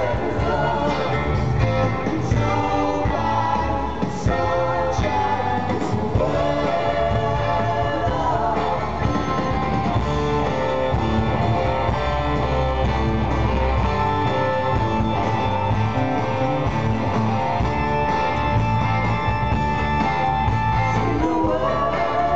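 Live rock band heard from the audience: a sung lead vocal over electric bass, guitars and drums. In the middle the singing gives way to instrumental playing with one long held note, and the vocal comes back near the end.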